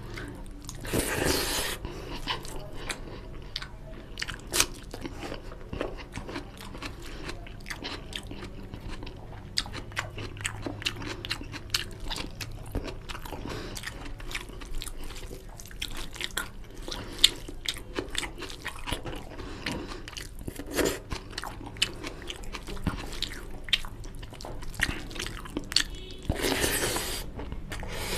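Close-miked chewing and mouth sounds of a person eating curry and rice by hand: many sharp wet clicks and smacks, with two longer rushes of noise about a second in and near the end.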